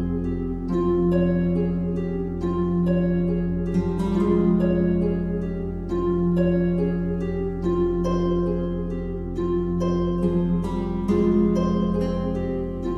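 Soft background music of plucked harp notes over steady held low notes.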